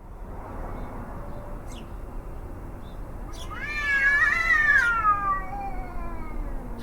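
A cat howling: a faint, lower call, then about three seconds in a loud, drawn-out howl that wavers in pitch and falls away, over a steady low background rumble.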